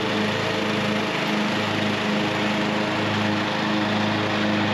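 Riding lawn mower's 14.5 hp Briggs & Stratton engine running steadily under load, with the blades engaged and cutting tall, dry field grass, giving a constant engine hum over a whirring hiss.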